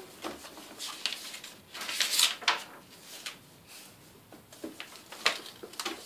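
Paper magazine pages rustling and flapping as they are handled and turned, in a few short crinkly swishes.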